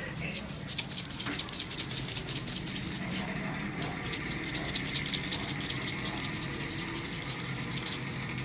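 Plastic shaker jar of dry steak rub shaken over a raw steak: a rapid, fine rattle of ticks as the granules shake out and scatter onto the meat and cutting board.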